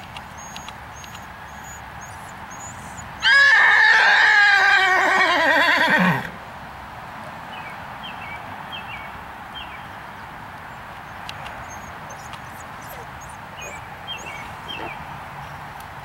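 A horse whinnying once, loudly, starting about three seconds in and lasting about three seconds. The call wavers throughout and drops steeply in pitch at the end.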